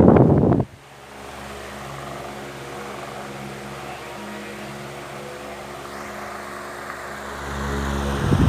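Arge Twister 50 cm wall fan running, its motor humming steadily under the rush of air. Its airflow strikes the microphone as a loud gusty rumble that dies away under a second in and builds again over the last second, as the oscillating fan sweeps past and back.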